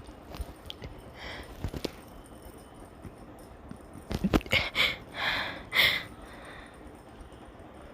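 Hiccups: a run of short, sudden hiccup sounds between about four and six seconds in, with a few faint clicks earlier.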